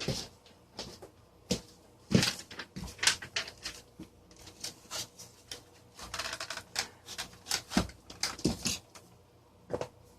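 Plastic parts of a desk fan clicking, knocking and rattling as they are handled and pulled apart: a run of irregular clicks and short rattles.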